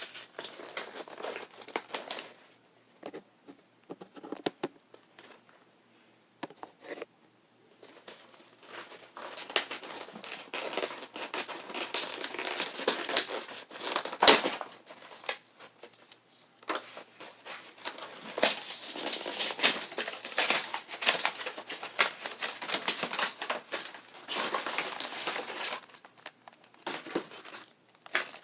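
Packaging of a Pokémon card collection box being opened by hand: irregular crinkling and tearing of plastic wrap and wrapper. It is sparse for the first few seconds, then busy, with one sharp snap about fourteen seconds in.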